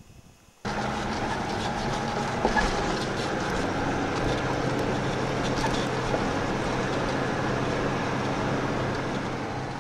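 Toyota Land Cruiser HDJ80's turbo-diesel straight-six running steadily under way, heard from inside the cabin, with many short clicks and clatters from the body and loose gear as it drives over a rough stony track. The sound starts suddenly just under a second in.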